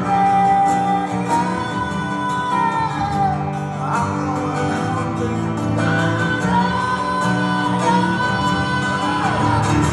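Live acoustic band: a singer holding long sung notes over three strummed acoustic guitars.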